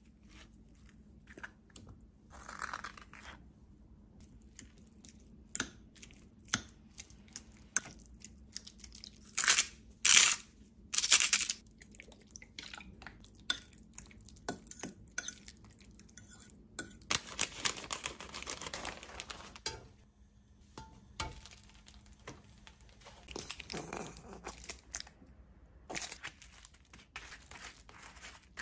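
Food-preparation handling sounds: a spoon scooping ripe avocado flesh into a small ceramic bowl and a metal utensil mashing it, with repeated scrapes and clinks of metal against the bowl. The sounds come as scattered short clicks and scrapes, with a few louder bursts about ten seconds in and a longer stretch of steady scraping later on.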